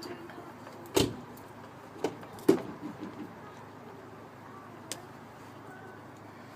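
A few sharp knocks or taps, the loudest about two and a half seconds in, over a low steady background hum.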